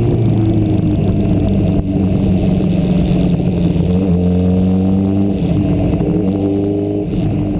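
Sport motorcycle engine running under way, heard from an onboard camera with road and wind noise; the engine note climbs gently in the second half as the bike accelerates.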